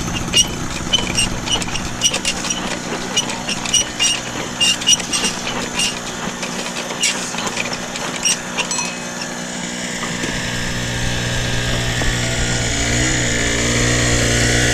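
An engine running steadily, with rapid clicking and rattling over it for the first several seconds. The engine then grows louder, and its pitch shifts briefly near the end.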